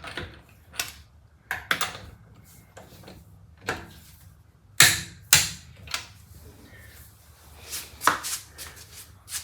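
Click-type torque wrench on car lug nuts: a run of sharp, irregular metallic clicks and clacks as it is fitted to each nut and clicks off at its 76 ft-lb setting.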